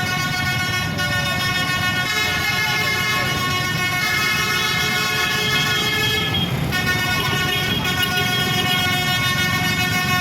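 Indonesian bus 'telolet' (basuri) multi-tone musical horn playing long held chords, moving to new notes about every two seconds, with a short break a little past halfway. A low rumble runs underneath.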